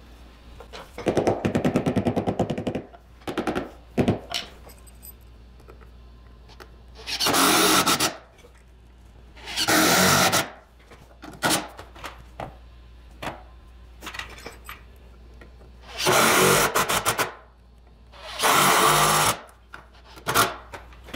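A handheld power driver driving screws into a wooden newel post: a rapid rattling run about a second in, a few knocks, then four bursts of about a second each.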